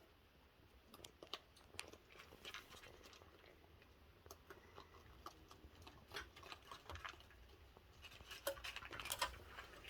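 Raccoons eating and moving about: faint, scattered clicks and crunches, busier near the end.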